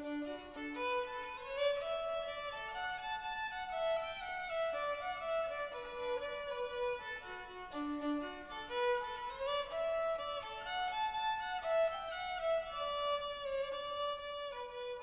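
Soundtrack music: a fiddle playing a melody that steps up and down.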